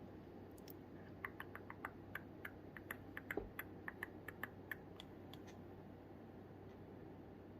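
Computer keyboard keys being typed: a run of about twenty light, irregular clicks lasting about four seconds, then stopping, over a faint steady hum.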